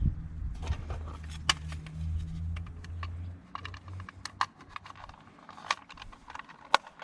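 Irregular light clicks and taps from hands working on a car headlight assembly while fitting a halogen bulb. A low steady hum underneath stops about three and a half seconds in.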